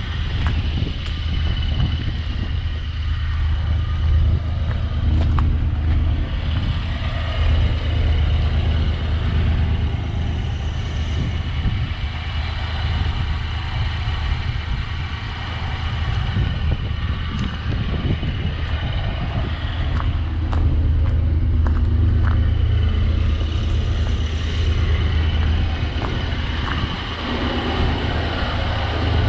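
Pickup truck engine idling, a steady low rumble, with a few faint clicks in the second half.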